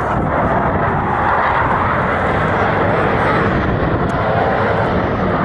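A formation of Navy F/A-18 Super Hornet jets flying over, a loud, steady rush of jet-engine noise.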